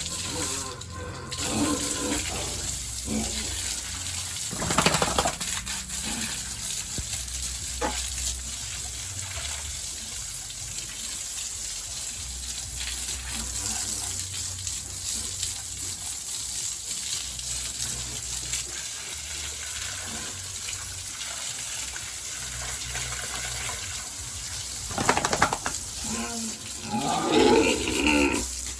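Water running in a steady hissing spray, as when a pig pen is washed down. A few louder sounds break through near the end.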